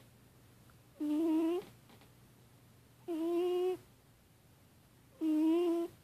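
Sleeping domestic cat snoring, with a short, steady squeaky tone on each breath, three times about two seconds apart.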